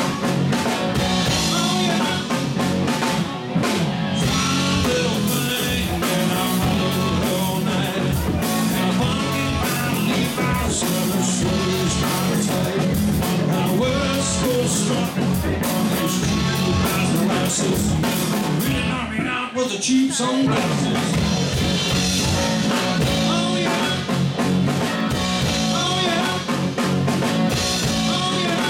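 Live rock band playing: electric guitar, bass guitar and drum kit. The band drops out briefly about two-thirds of the way through, then comes back in together on a hit.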